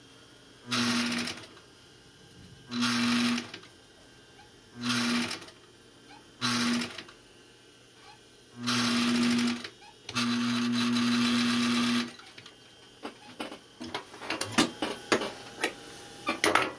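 Gemsy industrial sewing machine stitching in six short stop-start runs, each a steady motor hum with a whirr of the needle. The last and longest run lasts about two seconds. After it come light clicks and taps as the work is handled at the machine.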